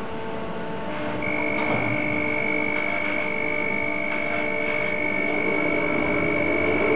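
Harbour crane's electric drives running while it hoists a steam locomotive: a steady hum of several fixed tones, joined about a second in by a steady high whine.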